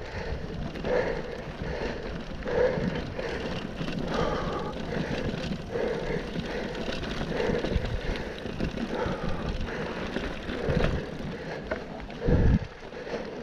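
Mountain bike riding over grass and dirt singletrack, heard from a handlebar-mounted camera: tyre rumble and wind on the microphone, with the rider's heavy breathing coming as regular exhalations about every one and a half seconds. A low thump near the end.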